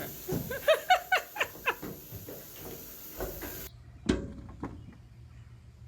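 A cat giving a quick string of short, high mews over about two seconds, which the owner takes for hunger. A single soft knock follows about four seconds in.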